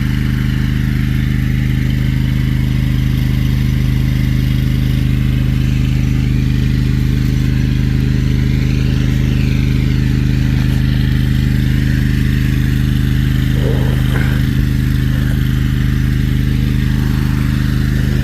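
Hydro jetter's engine and high-pressure pump running steadily at constant speed while jetting a clogged sewer line.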